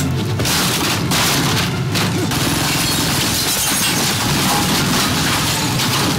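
Action-film gunfight sound: heavy gunfire tearing through walls, with plaster and brick breaking and debris crashing, dense and continuous with short lulls near the start and about two seconds in.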